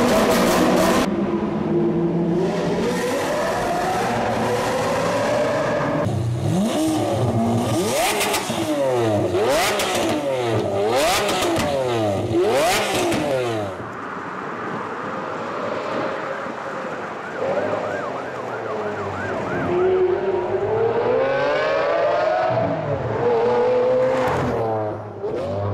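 Lamborghini Aventador V12 exhaust revving hard in quick blips, the pitch shooting up and falling back again and again with sharp pops between. Near the end it pulls away, the pitch climbing in long rising sweeps through the gears.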